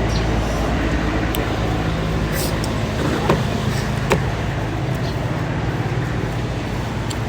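A motor vehicle running with a steady low drone, with two short knocks a little past the middle.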